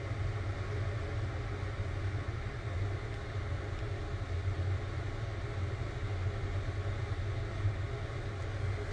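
Gas stove burner running under a pan of rice porridge heating through: a steady low rumble that holds unchanged throughout.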